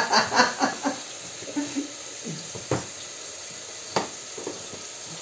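Kitchen knife cutting through a fig leaf gourd, with two sharp knocks about a second apart as the blade hits the plastic cutting board. Under it, onions sizzle steadily as they fry in a pan.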